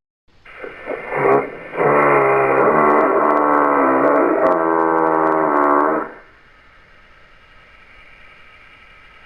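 A creature call billed as a crocodile frog's: a low, pitched call with a slightly wavering pitch, held for about four seconds after a few shorter starts, then only a faint hiss.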